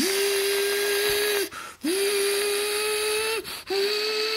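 A person's voice imitating a car engine for a toy car ride: a steady hummed 'vroom' held in long notes, each swooping up in pitch at the start, with two quick breaths between them.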